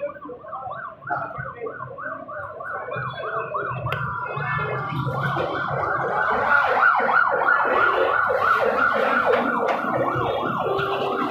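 A siren sounding in a fast yelp, its pitch sweeping up and down about three times a second, growing louder about halfway through.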